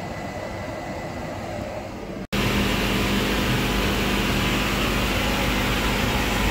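Steady whirring hum of a CO2 laser cutter running, with a faint high whine at first, then stepping up louder about two seconds in.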